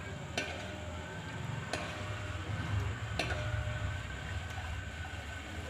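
A metal spoon stirring sugar syrup in a metal pan and clinking against its side three times, each clink ringing briefly, over a steady low hum.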